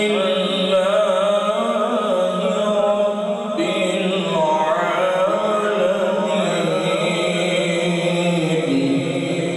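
A man's voice reciting Islamic devotional text (Quran tilawat or naat) in long, wavering, drawn-out melodic lines, unaccompanied and amplified through a microphone.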